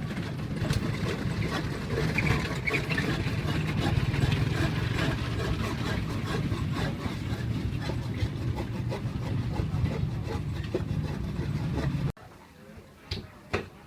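An engine running steadily close by, a loud low rumble, that cuts off sharply about twelve seconds in, leaving quieter background with a few clicks.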